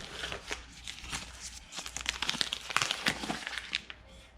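Packaging being unwrapped by hand, with a run of crinkling and rustling that grows busier in the second half and dies down near the end.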